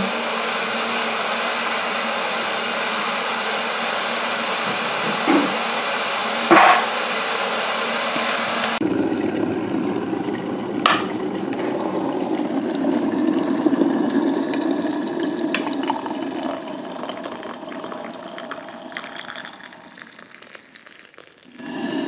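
Water heating toward the boil with a steady hiss and hum. About nine seconds in the noise drops abruptly, a click follows, and the remaining bubbling dies away over the next several seconds.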